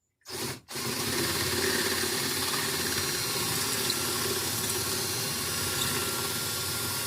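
Electric drill running steadily under load, starting just under a second in: a 5/16-inch bit drilling out the head of a door-handle rivet.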